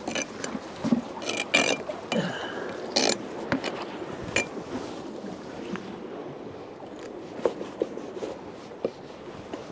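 Mackerel being handled and cut with a knife on a metal mesh pier deck: scattered knocks, slaps and scrapes, most of them in the first three or four seconds and fainter ones later, over a steady wash of wind and water.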